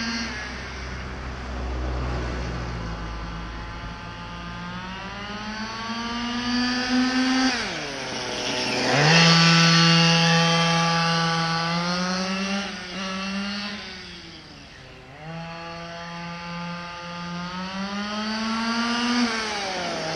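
Losi DBXL RC buggy's small two-stroke gasoline engine revving up and down as the buggy is driven, its pitch rising under throttle and dropping sharply when the throttle is let off. It is loudest about nine seconds in.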